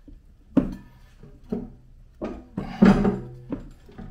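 Irregular metal clunks and knocks, each with a short ringing tone, as the pugmill's electric motor casing is wiggled and shifted against the gearbox housing to work it free. The loudest clunk comes about three seconds in.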